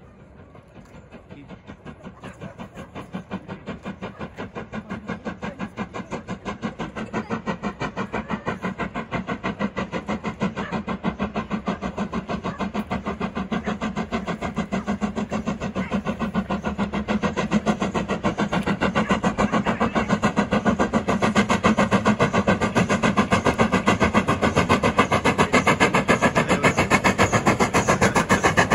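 Steam locomotive working hard across a viaduct, its exhaust chuffing in a fast, even beat that grows steadily louder as it approaches.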